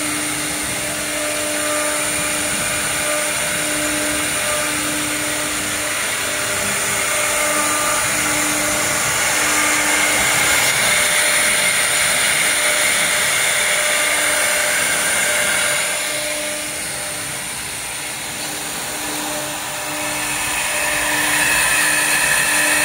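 Wood CNC router spindle running at high speed with a steady high whine while the bit routes a slot into a wooden board, over a low hum that pulses on and off. The sound drops for a few seconds about two-thirds of the way in, then comes back louder with more cutting noise near the end.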